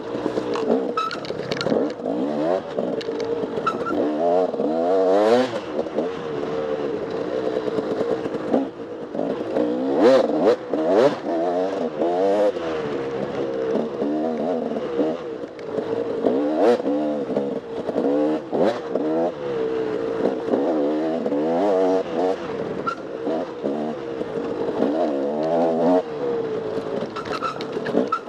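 Off-road dirt bike engine revving up and down again and again as the throttle is worked over a trail, with occasional sharp knocks and clatter from the bike over rough ground.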